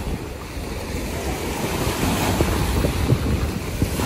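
Small waves breaking at the water's edge of a sand beach, foam washing up and back, with wind buffeting the microphone. The wash swells louder about halfway through.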